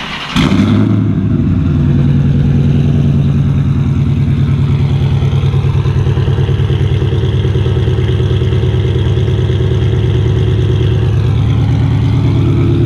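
2013 Dodge Charger R/T's 5.7-litre Hemi V8, with long-tube headers, catless mid pipes and a straight-piped exhaust, starting up: a brief crank, then it catches with a loud flare and settles into a steady idle. It is really loud, with a deep, open exhaust note.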